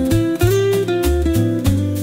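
Background music with a steady beat and a series of held notes.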